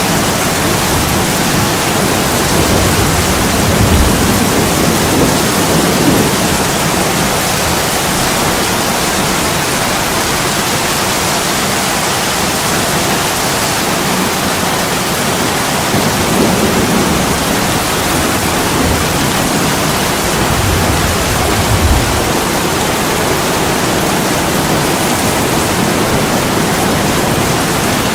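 Heavy rain pouring steadily onto a window pane, with a few low rumbles of thunder swelling and fading.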